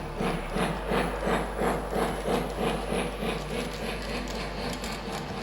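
Lionel O gauge Milwaukee Road 4-6-2 model steam locomotive's onboard sound chuffing at a steady beat, about three chuffs a second. The chuffs are strongest through the first half and fade somewhat toward the end.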